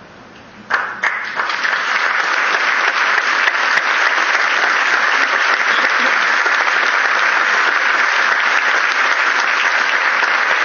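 Audience applauding: a brief hush, then the first claps under a second in, swelling within about a second into full, steady applause.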